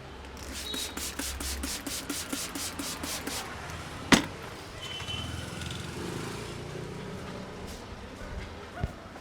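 Head massage by hand: rapid rhythmic tapping or chopping strokes, about four a second for about three seconds, then a single sharp crack or slap about four seconds in. Traffic in the background.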